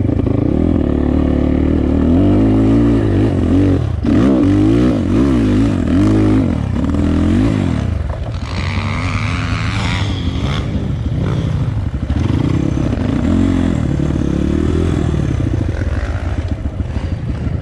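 Enduro dirt bike engine revving up and down over and over as it is ridden, its pitch rising and falling with each throttle change. About eight seconds in, a hissing rush rises over the engine for a couple of seconds.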